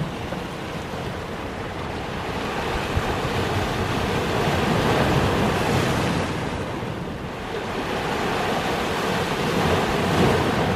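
Heavy surf breaking and washing over the boulders of a rock shoreline. It swells with a larger wave around the middle and another near the end.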